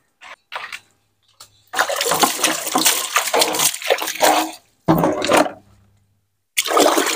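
Water poured out of a plastic basin and splashing, in three gushes: a long one of about three seconds, a short one, then another near the end.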